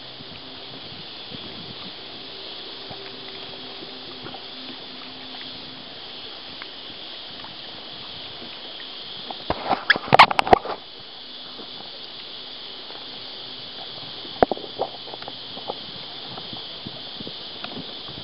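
Water lapping and sloshing against a kayak hull under a steady hiss. A burst of loud knocks and rattles comes about ten seconds in, and a single knock a few seconds later, as the camera and fishing gear on the kayak are handled.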